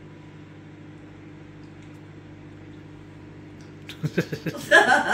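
Microwave oven running with a steady electrical hum. Voices and laughter break in near the end.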